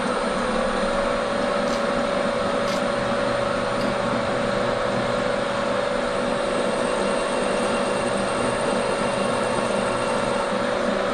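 Bridgeport milling machine running with a spotting drill cutting into a locomotive cylinder casting: a steady machine whine that steps up slightly in pitch just after the start, over even running noise.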